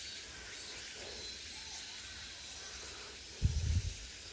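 Steady outdoor hiss of natural ambience on a mountain trail, with a short low rumble about three and a half seconds in.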